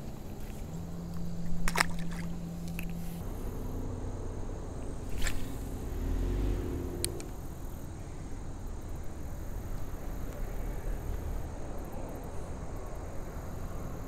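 A few sharp clicks and knocks from hands and fishing gear as a caught bass is unhooked and the spinning rod is taken up again, over a steady low outdoor background. A low steady hum runs for a couple of seconds near the start.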